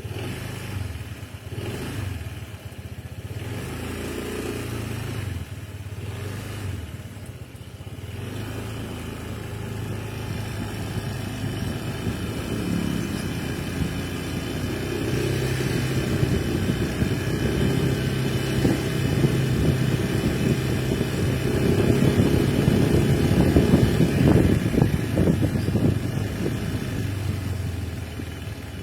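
Honda ADV 160 scooter's single-cylinder engine running, held at a steady low speed and then brought to higher revs in the second half, louder and higher-pitched around the 22 to 25 second mark before easing back. It is the engine's sound after 1,300 km of use, which the owner judges safe despite a slight noise.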